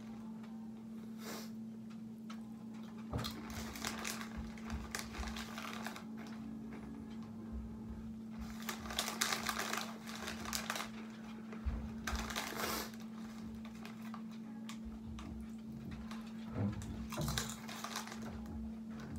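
Doritos chip bag crinkling in several bursts as a hand works in it, along with tortilla chips crunching; a steady low hum runs underneath.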